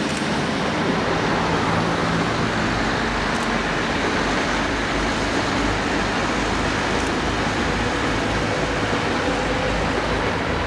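Three-car train of FS ALn 668 diesel railcars passing at moderate speed, with a steady mix of diesel engine noise and wheel-on-rail noise.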